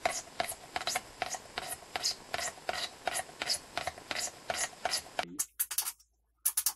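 Chisel blade scraping around the wall of a plastic pipe, about four quick strokes a second, shaving the wall thinner; the scraping stops abruptly about five seconds in. A few sharp clicks follow near the end.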